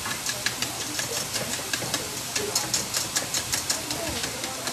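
Food sizzling in a hot pan: a steady hiss with many irregular sharp crackles and pops, over a faint steady low hum.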